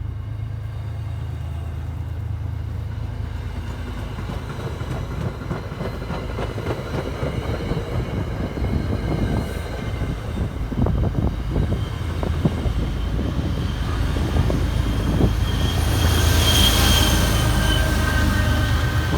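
MBTA commuter train with an HSP-46 diesel locomotive moving along the track: a steady low engine hum with wheels knocking over rail joints, then a high-pitched wheel squeal about three-quarters of the way through, the loudest part.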